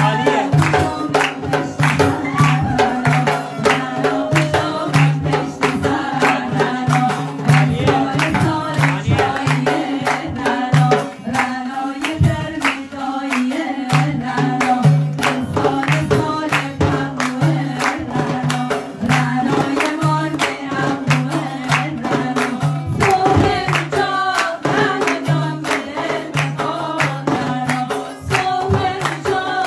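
Group of voices singing a Persian folk song over a steady, fast drum beat with a pulsing low note.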